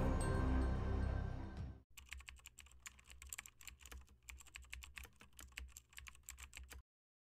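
Dark background music fades out about two seconds in. A typing sound effect follows: rapid keystroke clicks for about five seconds, then stopping abruptly.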